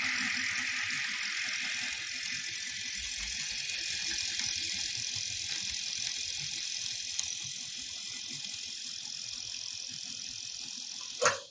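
Cowboy 797 industrial leather sewing machine running steadily at full speed under the treadle pedal, driven by a servo motor set to 2000 RPM: a continuous high-pitched mechanical whir. It cuts off near the end.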